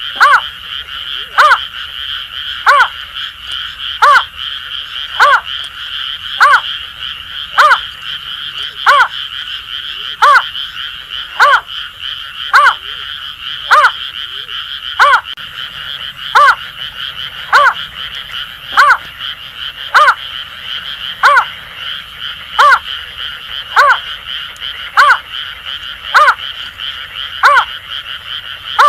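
Greater painted-snipe calling: short notes repeated evenly, about one every 1.2 seconds. Underneath runs a steady chorus of Asian grass frogs.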